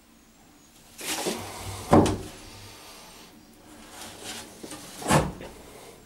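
A cupboard door being opened and handled, with a loud knock about two seconds in and another near five seconds.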